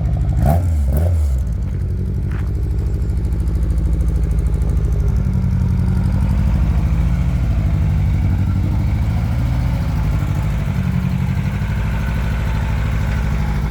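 Car engine idling steadily, with a few short knocks in the first second.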